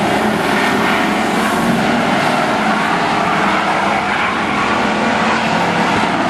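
Several demo race trucks running hard around the track together, their engines making a steady, loud mix.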